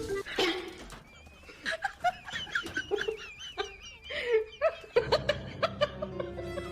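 An animal's short, wavering calls, repeated many times.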